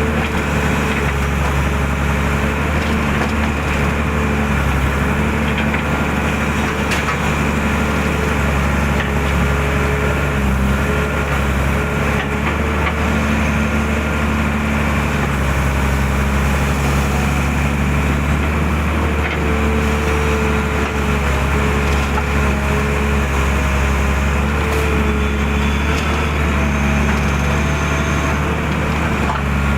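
Hydraulic excavator's diesel engine running steadily. A higher tone comes and goes over it as the machine works.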